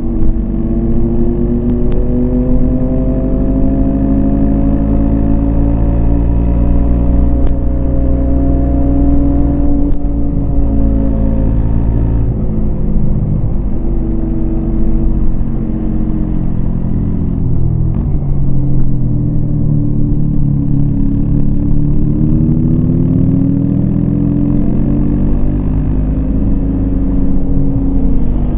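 Yamaha MT-25's parallel-twin engine running under way, its pitch rising and falling several times as the throttle opens and closes.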